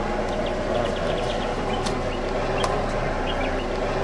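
Vehicle engine idling steadily at close range, with a few sharp clicks over it.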